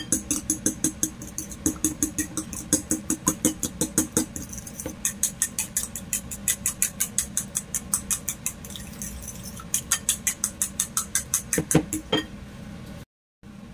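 A fork beating a raw egg in a ceramic bowl: quick, even clinks of metal on ceramic at about five or six a second, pausing briefly twice.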